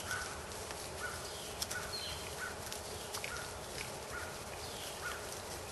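Small birds calling in short chirps, roughly two a second, over a steady outdoor hiss, with a few faint clicks.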